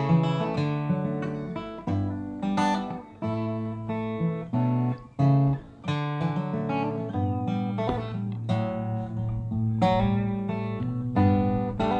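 Background music played on a plucked acoustic guitar, notes and strums in a steady run.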